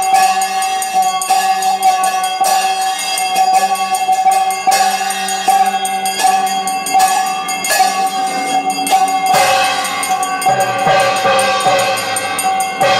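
Brass hand bell (ghanta) rung continuously during an aarti: a steady ringing tone renewed by quick, repeated strikes, with jingling percussion. About nine and a half seconds in, more temple music with a slowly falling pitch joins and fills out the sound.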